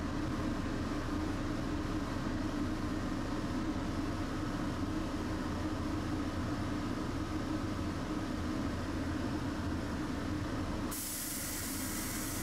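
Tosaden streetcar running, heard from inside the car: a steady rumble of motor and wheels. About eleven seconds in the rumble drops away and a sharp hiss of air sounds for about two seconds.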